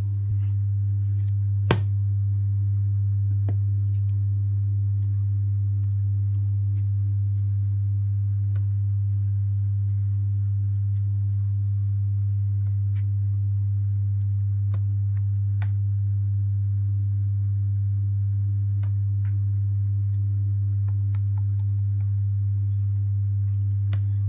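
A steady low hum held at one pitch, with a few faint clicks and taps scattered through it, the sharpest about two seconds in.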